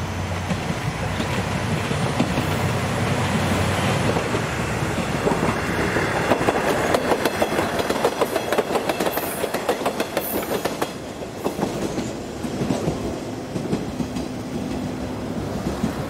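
JR KiHa 110-series diesel railcar pulling away and passing close by. Its diesel engine hum is heard first, then its wheels clack over the rail joints in a quick, even rhythm for several seconds, and the engine hum comes back near the end.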